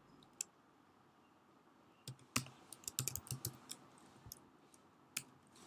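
Keystrokes on a computer keyboard while code is typed: a few scattered taps and a quick run of keys between about two and four seconds in.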